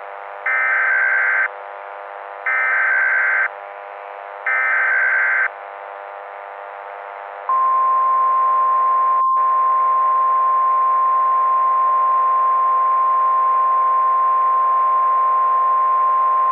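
Three one-second buzzy bursts of Emergency Alert System header data, then a single long, steady NOAA Weather Radio warning alarm tone starting about halfway through, all over a steady drone. The drone cuts out for an instant shortly after the alarm begins.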